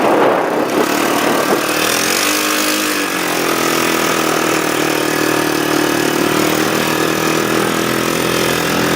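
ATV engine running steady under a rider, its revs rising and falling once about two seconds in.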